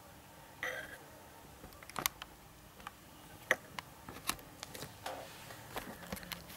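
Scattered light clicks and taps of objects being handled, with a brief rustle just over half a second in and a quick cluster of clicks right at the end.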